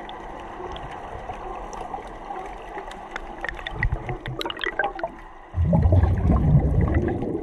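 Water heard from inside an underwater camera's housing: a steady gurgling hiss, then bubbles crackling and ticking around four seconds in. From about five and a half seconds, a much louder low churning of water as the camera comes up just under the surface.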